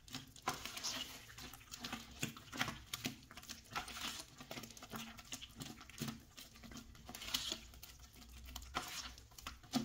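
Watery drywall plaster being stirred by hand in a plastic bucket: irregular wet scraping and slapping of the mixing tool through the plaster and against the bucket, several strokes a second.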